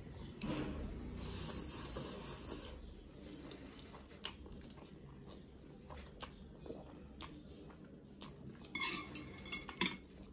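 A person slurping a mouthful of instant noodles, a long hissing slurp for about two seconds, then chewing with scattered small wet clicks. Near the end come several sharper clatters from chopsticks against the plate.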